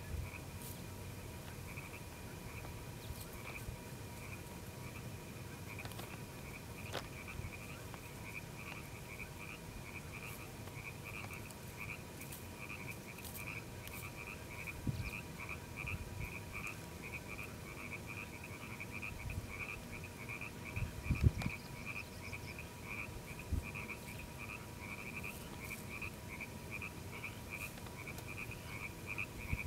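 A chorus of frogs calling: short high-pitched croaks repeating many times a second without a break. A few low thumps about two-thirds of the way through are the loudest sounds.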